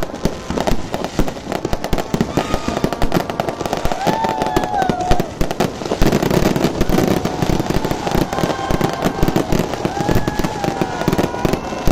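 Fireworks display going off in rapid succession: dense crackling and popping with louder bangs mixed in, getting heavier and fuller about halfway through.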